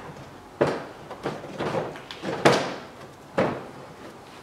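Plastic engine hood of a STIGA Park Pro 20 ride-on mower being released and tilted open: a few sharp knocks with plastic clattering between them, the loudest about halfway through.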